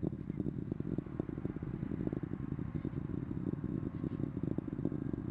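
Distant rumble and crackle of a United Launch Alliance Atlas V rocket climbing on its RD-180 engine and five solid rocket boosters, a steady low roar broken by many sharp pops.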